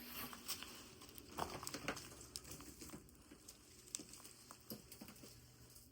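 Faint, irregular footsteps crunching on snow and ice, a few soft steps a second, thinning out toward the end.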